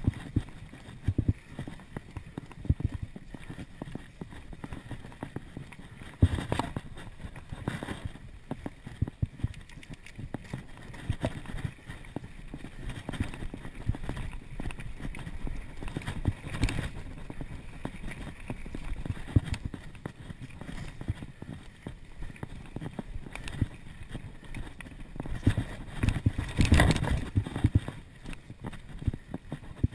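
Mountain bike rolling over a dirt trail, rattling and knocking irregularly as it rides over bumps and roots, with a few sharper clacks; the knocking is thickest and loudest a few seconds before the end.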